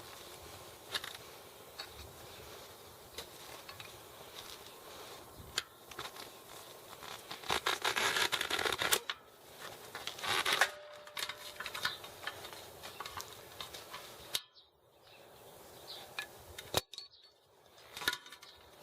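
Old, rotted bicycle tire and inner tube being worked off the rim by hand and tire lever: scattered clicks and taps, with rubber rubbing and scraping against the rim loudest about seven to nine seconds in and again near ten seconds.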